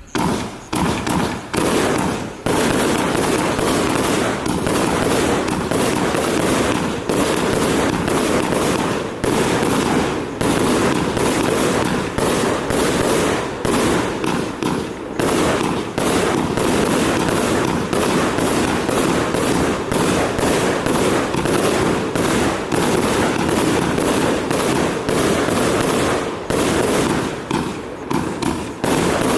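Pyroworx 'Gumball' firework going off: a dense, continuous barrage of rapid pops and crackling bursts with no real pause.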